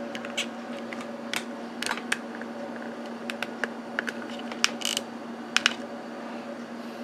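Handling noise from a camera being moved and set up: scattered light clicks and knocks, a few of them sharper, over a steady low hum.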